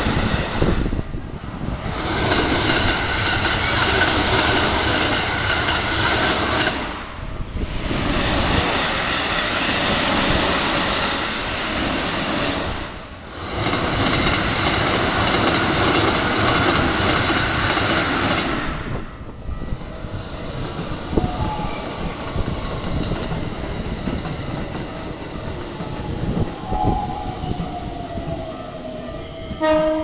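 Keikyu electric trains passing through a level crossing at speed, with loud wheel and running noise and the crossing's warning bell ringing over it. The train noise drops about 19 seconds in, and a falling whine comes near the end.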